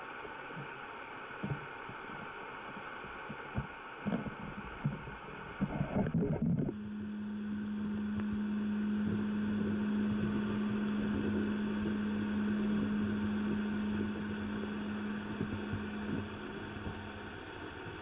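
Underwater river sound heard through the camera housing: scattered knocks and taps for the first few seconds, then a steady low hum over a rushing noise that fades out near the end.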